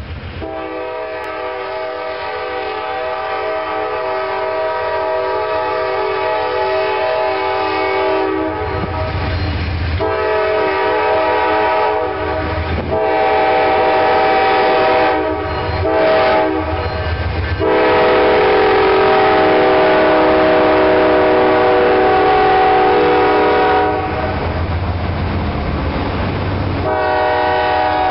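A freight diesel locomotive's multi-chime air horn sounding a series of blasts as the train approaches and passes: a long blast growing louder over the first eight seconds, several shorter blasts with brief gaps, then another long blast of about six seconds. A low diesel engine rumble comes in as the locomotive passes, and rail cars roll by near the end.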